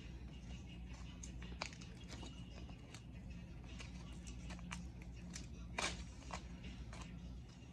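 Scissors snipping through a painter's-tape template in short, separate cuts, with light crinkling of the tape; the sharpest snip comes about six seconds in. A faint steady low hum runs underneath.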